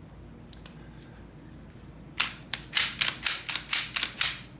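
A quick run of about nine sharp clicks, some four a second, starting about two seconds in, from parts of a CAA Micro Conversion Kit pistol chassis being worked by hand.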